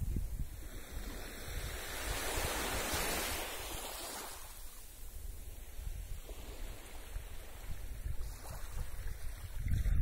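Small waves of a calm sea lapping and washing up a sandy beach, one wash swelling and fading away about two to four seconds in. Wind rumbles on the microphone, strongest at the start and near the end.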